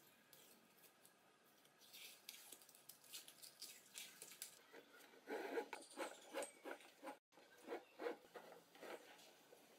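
Faint scratchy rubbing and rustling of hands working adhesive tape around a metal pole, in quick strokes that are loudest for about two seconds past the middle. After a brief gap, softer rubbing as a rope is worked through a rubber tyre.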